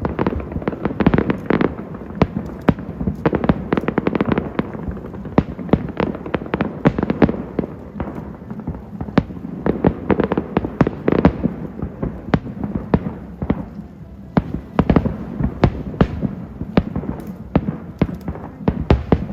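Fireworks going off in a dense, continuous barrage: rapid irregular cracks and bangs over a constant rumble, with a brief lull about 14 seconds in.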